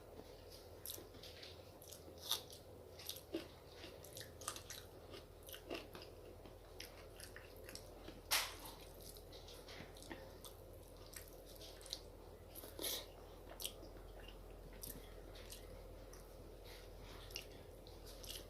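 Close-miked eating sounds: chewing a meal of rice and curry, with scattered irregular wet clicks and smacks, one sharper click about 8 seconds in.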